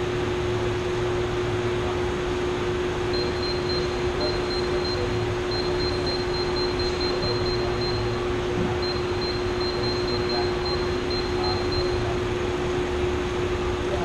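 Steady rushing air noise of running shop fans with a constant low hum under it, and a faint high-pitched on-off tone through the middle stretch.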